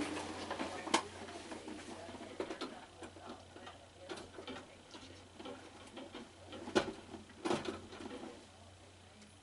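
Scattered light clicks and knocks of parts being handled during assembly, a few louder knocks about a second in and near seven seconds, over a low steady hum.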